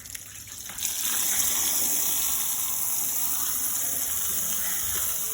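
Water spraying hard onto a mat being washed: a steady rush that comes on about a second in and holds.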